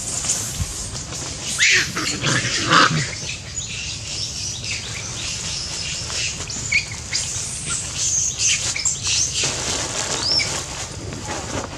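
Long-tailed macaques, mostly juveniles, making short high-pitched squeaks and chirps at irregular intervals, with a louder burst of calls about two seconds in.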